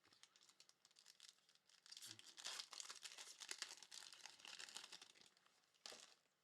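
A trading-card pack wrapper being torn open and crinkled by hand: faint, dense crackling that grows louder about two seconds in, then a short final crinkle near the end.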